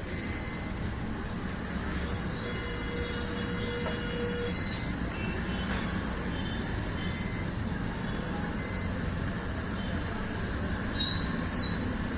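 Digital multimeter's continuity buzzer giving a series of short, high-pitched beeps of varying length as the probes touch fuse after fuse, each beep signalling that the fuse is intact. Near the end there is one brief, louder rising chirp.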